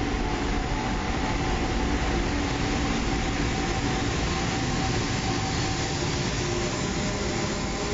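JR Freight Class EF510 electric locomotive hauling a container freight train through a station: a steady, even rumble of wheels on rail with a few humming tones over it.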